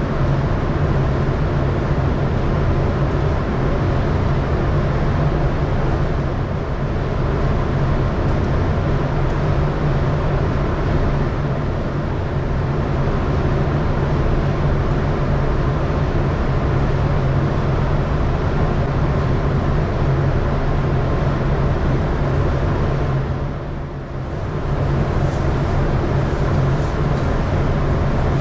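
A steady mechanical drone with a strong low hum, dipping briefly in level about 24 seconds in.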